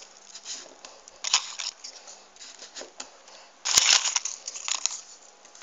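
Folded paper triangle units of a 3D origami model rustling and scraping as they are handled and pushed into place, in short irregular bursts, with a sharp click a little under four seconds in.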